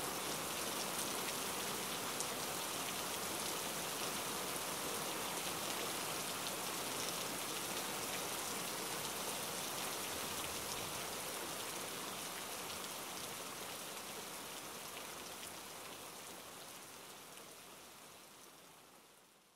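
Steady rainfall, with scattered individual drops ticking through the hiss. It fades out gradually over the last several seconds.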